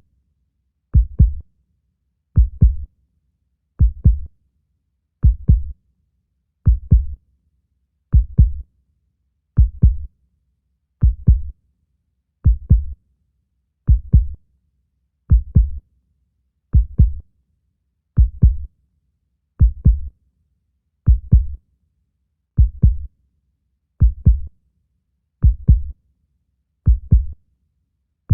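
Heartbeat: slow, steady lub-dub double thumps, deep in pitch, repeating evenly about forty times a minute.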